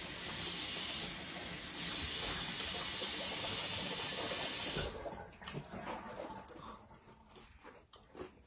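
A steady hissing noise that cuts off abruptly about five seconds in, followed by faint scattered clicks and taps of a fork and fingers on a plate.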